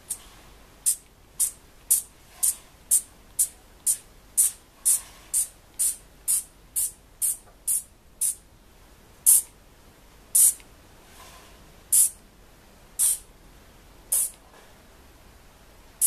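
Trigger spray bottle squirting short hisses of mist onto a painted surface, about two a second for eight seconds, then a handful of slower squirts about a second apart. It is beading the paint with water drops.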